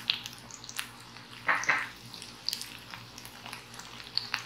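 Chopped shallots, coconut pieces and cumin seeds sizzling in hot oil in an iron pan: a steady hiss with scattered crackles and pops, and a louder burst of sizzling about a second and a half in.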